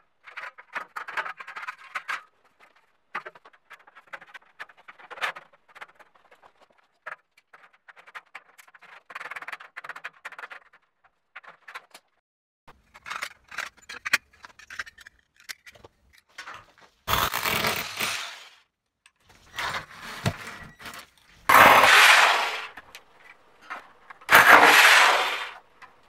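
Galvanised steel drywall studs clinking and scraping as they are handled and cut with hand snips, then three loud bursts of about a second and a half each from a power drill driving screws into the metal studs.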